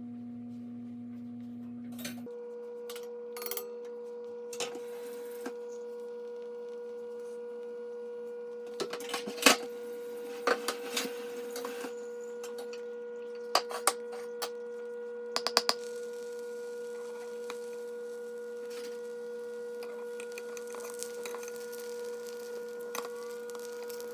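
A steady pitched hum holds throughout, shifting up in pitch about two seconds in, over scattered light clicks and clinks of kitchen utensils. The clicks are loudest in a cluster about ten seconds in, with a few more around fourteen and fifteen seconds.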